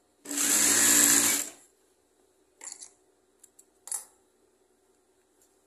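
Yamata industrial straight-stitch sewing machine running in one short burst of about a second, stitching a narrow double-turned hem on viscose fabric. Later come a few faint clicks.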